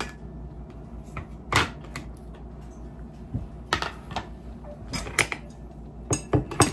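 Scattered light clicks and taps of tableware being handled: a glass sauce container and a ceramic bowl knocking together and being set down, then chopsticks picked up.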